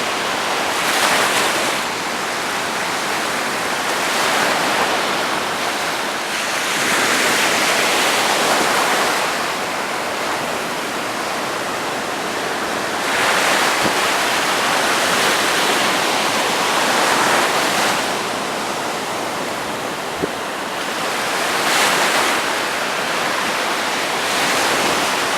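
Steady rush of surf and strong wind, swelling and easing every few seconds.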